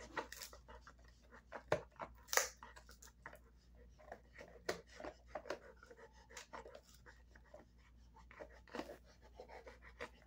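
Large dog chewing and gnawing on a beef cheek roll: irregular clicks and crunches of teeth working the dried hide, with a sharper crunch about two seconds in.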